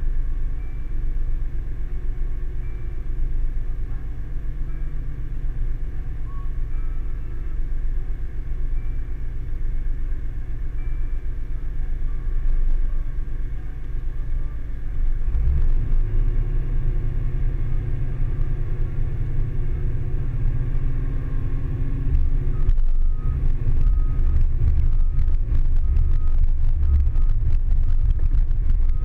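Diesel engines of Caterpillar hydraulic excavators running with a steady low rumble. About halfway through the rumble grows louder and heavier. Later a faint repeating beep and some light rattling come in over it.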